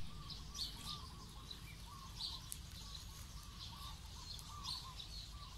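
Faint, repeated short high peeps of newly hatched Muscovy ducklings tucked under the sitting hen, over a steady low background rumble.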